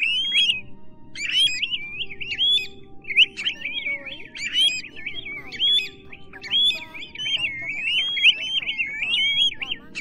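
Pacific golden plovers calling: rapid whistled notes that rise and fall, several calls overlapping in long runs with brief breaks, as played for a lure.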